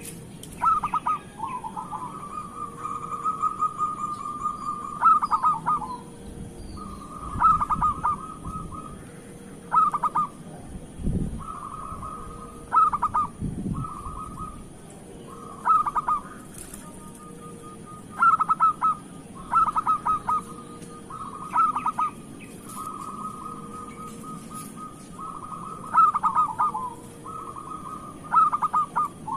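Zebra dove (perkutut) cooing in full song: phrase after phrase of quick stuttering coos and longer held notes, repeated every couple of seconds.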